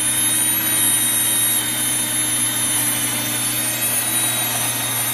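NutriMill electric grain mill running steadily and loudly, grinding einkorn wheat kernels into flour, with a constant machine hum and whine.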